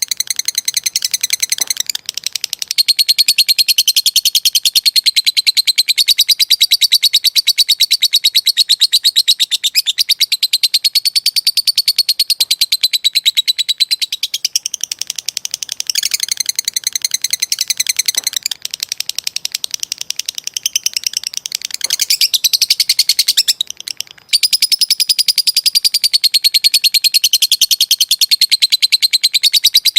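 Lovebird's long 'ngekek' chatter: a shrill, very fast trill of repeated notes held for several seconds at a time, with brief breaks between runs.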